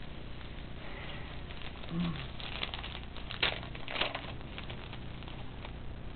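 Foil trading-card pack wrapper being torn open and crumpled in the hands: irregular crinkling and crackling, with the sharpest crackles about three and a half and four seconds in.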